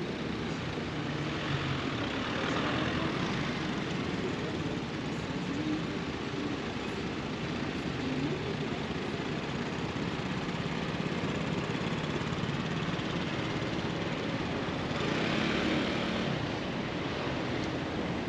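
City street traffic: a steady hum of cars and engines, with passing vehicles swelling louder twice, a couple of seconds in and again near the end.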